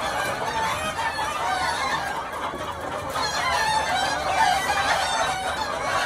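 A large flock of chickens, many of them roosters, clucking and calling over one another in a continuous din, with roosters crowing among them.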